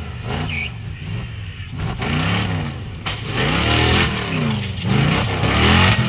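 Off-road 4x4 truck's engine revving up and down again and again under hard load as it climbs a steep rocky slope, with tyres spinning and scrabbling in loose dirt and rock. The revving and tyre noise get louder from about halfway in.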